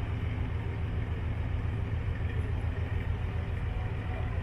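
A passenger ship's engine running with a steady low rumble as the ship cruises along the canal.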